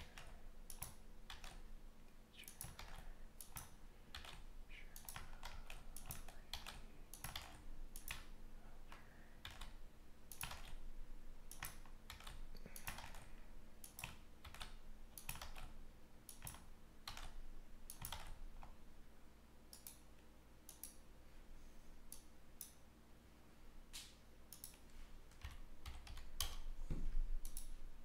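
Computer keyboard typing: irregular runs of keystrokes and clicks over a faint steady electrical hum, with a louder low bump near the end.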